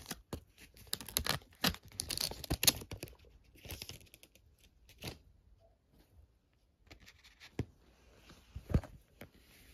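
Foil trading-card pack wrapper being torn open, a rapid run of crackling rips and crinkles over the first three seconds. Then come sparser crinkles and a few sharp clicks as the wrapper and cards are handled.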